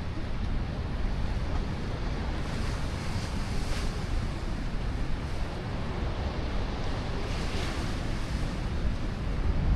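Pacific surf washing against a rocky shore, a steady rushing noise that swells briefly twice. Wind buffets the microphone with a low rumble.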